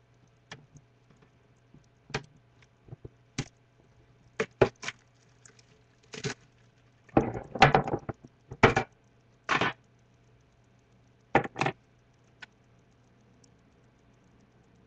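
Metal collector's tin being unsealed and opened by hand: scattered sharp clicks and knocks of the lid and handling, with a longer scraping, rustling stretch about seven to eight seconds in.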